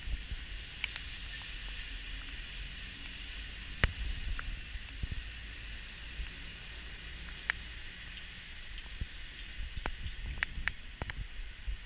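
Wind buffeting a moving camera's microphone as a fluttering low rumble, over a steady hiss, with scattered sharp clicks and knocks at irregular times.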